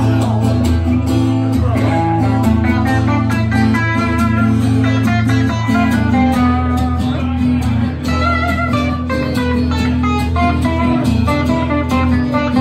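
Live acoustic guitar strumming together with an electric guitar playing along, steady and loud, with no singing.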